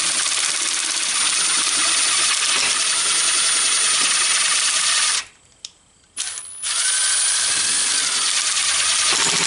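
Cordless drill running at low speed, a 5/16-inch bit boring out the hole in a battery cable's ring terminal to enlarge it. It stops about five seconds in, gives a short blip, then runs again.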